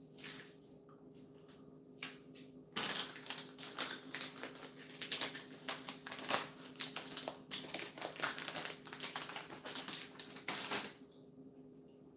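Foil candy bag crinkling as it is handled and rummaged through. The rapid crackling starts about three seconds in and stops shortly before the end.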